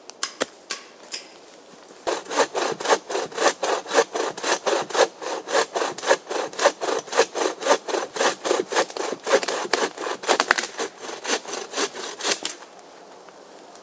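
Bow saw cutting through a thin fallen log, in quick rhythmic back-and-forth strokes that start about two seconds in and stop shortly before the end. A few light knocks come just before the sawing starts.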